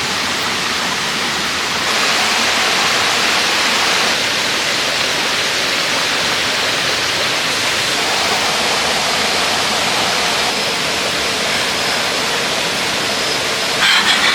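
Steady rushing noise, like running water, with small shifts in tone about two seconds in and again midway.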